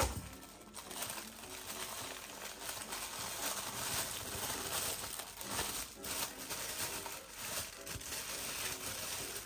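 A thump at the very start, then packing wrapping crinkling and rustling continuously as a tightly wrapped piece of jewellery is pulled and cut open.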